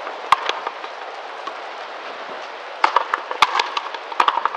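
A frontenis rally: sharp cracks of a hard rubber ball struck with tennis racquets and slapping off the front wall and floor. One crack comes early, then a lull of about two seconds, then quick runs of strikes through the last couple of seconds.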